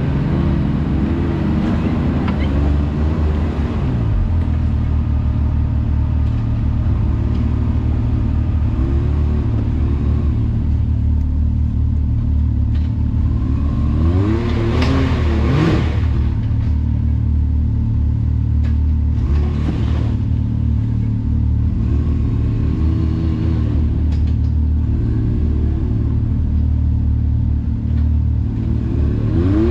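Side-by-side UTV engine running under way on a trail, a steady drone with the engine speed rising and falling every few seconds, and a louder revving surge about halfway through.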